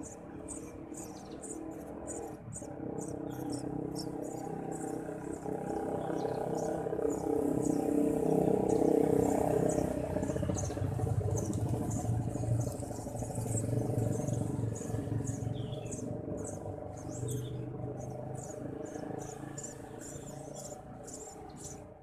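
Eurasian tree sparrow nestlings chirping rapidly and high, begging as the parent feeds them, over a steady low hum that grows louder toward the middle.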